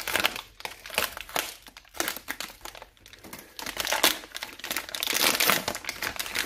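Packaging of a new spool of flux-core welding wire crinkling and rustling as it is handled and opened, in irregular bursts that grow denser about four seconds in.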